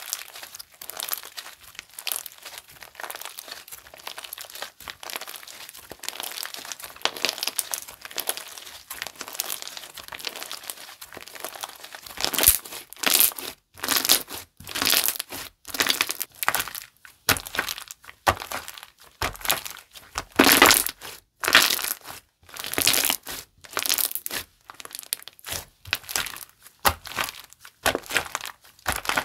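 Bubble Soap Ball slime being worked by hand, with a fine continuous crackling for about the first twelve seconds. After that comes a run of louder squishing presses, about one or two a second.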